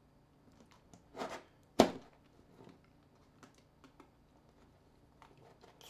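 Thin pry tool scraping against a smartphone's casing, then one sharp click about two seconds in, followed by faint scattered small ticks as the prying goes on.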